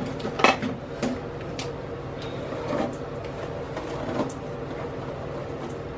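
A steady low hum runs throughout, with a few short spritzes and clicks of a hand spray bottle wetting hair, the loudest about half a second in and the last about four seconds in.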